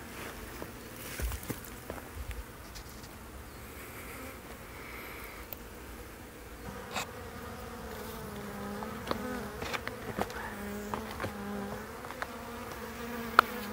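Honey bees buzzing as they fly close around the microphone, the pitch wavering up and down as they pass, stronger from about halfway through. A sharp click near the end.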